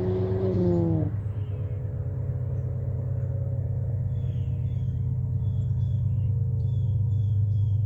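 2016 Ford Fiesta ST's turbocharged four-cylinder engine through an aftermarket cat-back exhaust, held at raised revs, then dropping off the throttle about a second in. It settles into a steady low idle rumble, its pitch slowly sinking.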